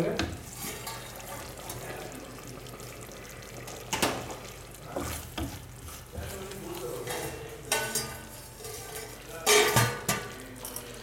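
Wooden spatula stirring and scraping thick masala paste around a frying pan, with a few sharper knocks of the spatula against the pan.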